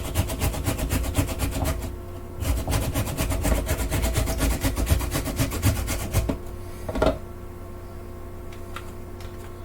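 Half an onion being rubbed quickly back and forth across a mandoline's finest grating blade, a fast run of rasping strokes with a short break, stopping after about six seconds. A single knock follows about a second later.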